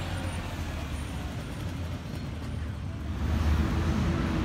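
Red double-decker bus's engine running with a deep hum as it passes close by, amid road traffic noise. About three seconds in the sound changes to a louder steady rumble with a faint, slowly rising tone.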